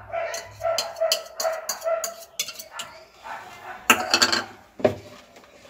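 A spoon clicks against bowls as curd is scooped into cake batter. Over it come short, repeated animal calls, with a louder burst about four seconds in.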